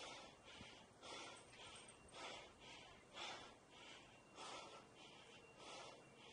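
Faint, heavy breathing of a person close to the microphone, in and out in a steady rhythm about once a second, the breathing of someone climbing steep steps.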